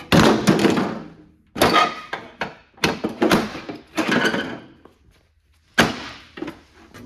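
A series of clanking, thudding impacts as a removed car body panel is stomped on against a concrete floor, about six hits with short metallic ringing and a quiet gap before the last one.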